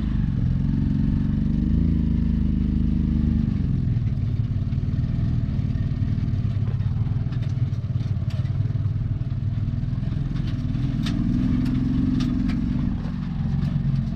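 Auto-rickshaw (tuk-tuk) engine running under way. Its pitch climbs in the first couple of seconds, then eases and rises again about eleven seconds in, with light rattles over it.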